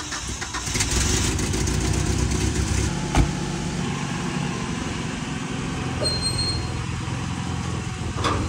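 1987 Dodge Ram 50's carbureted 2.6-litre four-cylinder engine running steadily just after a cold start, a little louder for the first couple of seconds before settling. A car door slams shut about three seconds in.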